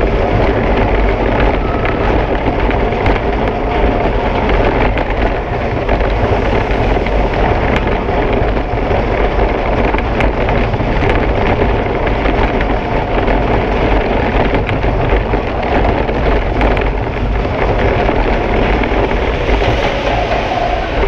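A Vekoma mine train roller coaster running along its steel track, heard from a camera mounted on the train: a loud, steady rumble and rattle with scattered clicks and clacks.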